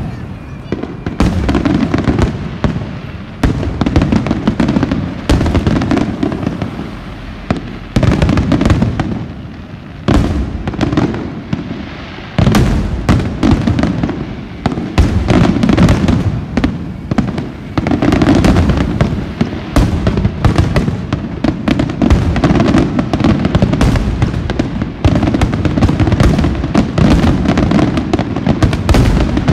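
Aerial firework shells bursting in a rapid barrage during a display's finale: a dense string of booms, in clusters with short lulls at first, then packing into an almost unbroken run from about twelve seconds in.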